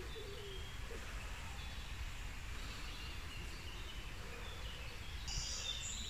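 Faint birdsong: scattered high chirps and short phrases over a steady low background rumble, with a brighter run of high notes near the end.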